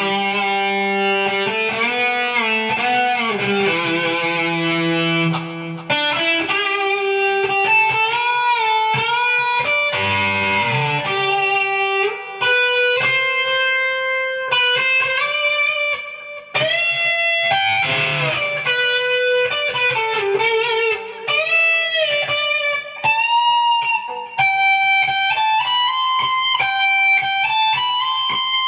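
Electric guitar playing a slow melodic lead line: long held notes with string bends up and down and vibrato, and a few short breaks between phrases.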